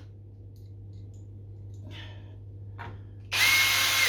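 Cordless drill-driver driving in a screw near the end, its motor whine rising and then holding steady, after a few faint handling knocks. A steady low hum runs underneath.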